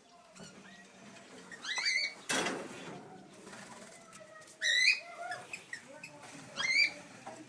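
Mixed birds in an outdoor aviary calling: three loud, shrill calls roughly two seconds apart over softer ongoing chatter, with a brief rush of noise, like a wing flutter, about two seconds in.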